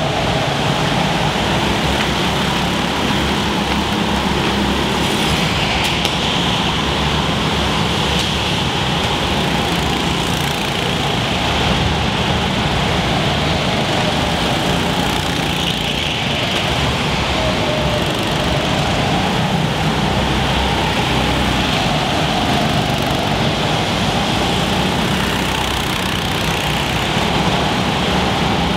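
Go-kart engines running on an indoor track, a continuous drone with the pitch of single engines rising and falling as the karts speed up and slow down.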